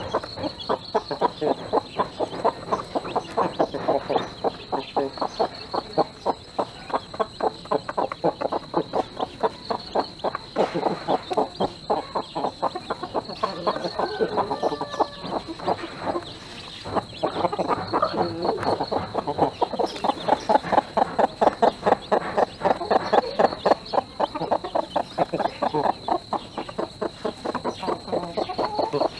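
Broody hen clucking in a fast, steady run of short clucks, about four or five a second, while pecking at grain: the food call a mother hen gives to draw her chicks to the feed.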